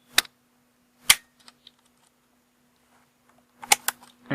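Sharp clicks from a laptop DDR3 RAM module being pressed down into its slot while the slot's retaining clips are worked with a screwdriver. There are two single clicks about a second apart, then a quick run of clicks near the end as the module seats.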